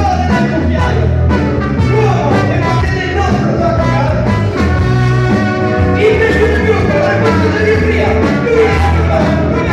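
Live blues band music with singing: two male vocalists sing over electric guitar, bass guitar, drums, trombone and saxophone.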